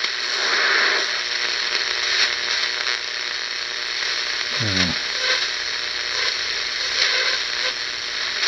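BC-454B shortwave receiver's speaker output as its dial is turned across the 3–6 MHz band: a steady hiss of static with faint whistles. About five seconds in, a tone slides quickly down in pitch as the tuning passes a signal.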